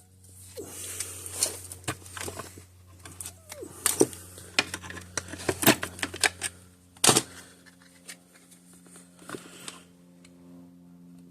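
Irregular sharp clicks and knocks from hands handling parts and tools at a workbench, loudest at about 4, 6 and 7 seconds in, over a steady low hum.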